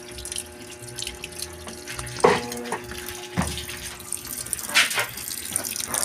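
Water running into the tub of an Electrolux 15 kg washing machine as it fills, with a few sharp knocks about two, three and a half, and five seconds in.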